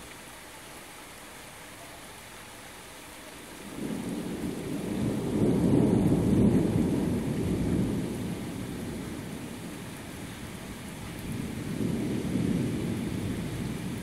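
Thunder rumbling over steady rain: a long low roll starts suddenly about four seconds in, swells and fades over several seconds, and a second, weaker rumble follows near the end.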